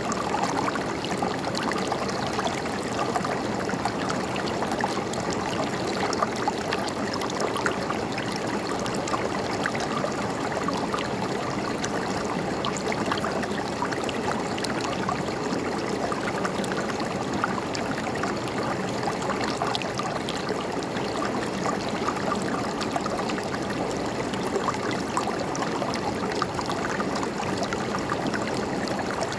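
River water flowing and gurgling over stones, a steady babbling with small splashes throughout.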